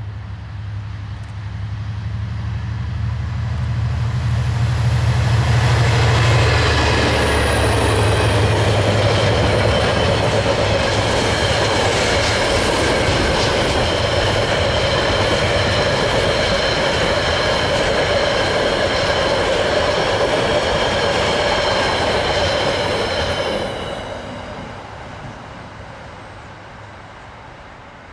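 Two KiwiRail DFB-class diesel-electric locomotives drone as they approach and pass, growing louder over the first six seconds. A long train of container wagons follows with loud wheel and rail noise and a steady high wheel squeal. The noise cuts off sharply about five seconds before the end as the last wagon passes, then fades away.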